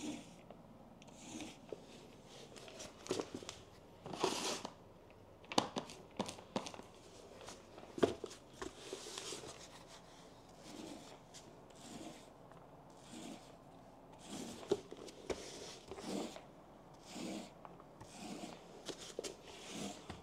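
Faint, irregular soft strokes of a small paint roller being worked over a painted wooden table side, with a few light clicks and rustles of handling between strokes.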